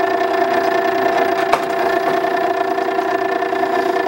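Makita 9820 electric water stone sharpener running with a steady motor hum, its wheel turning between grinding passes. A single short click about one and a half seconds in.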